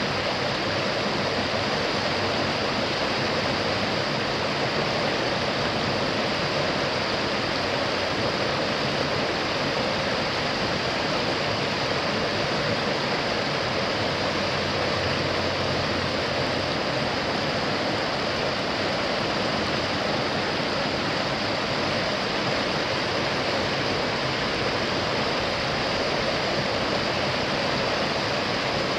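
Mountain river rapids: whitewater pouring over a rocky ledge into a pool, a steady, even rush of water.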